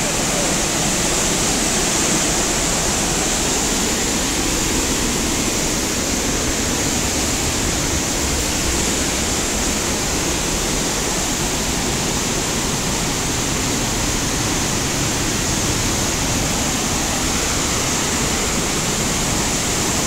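Waterfall and white-water mountain stream rushing, a loud, steady hiss.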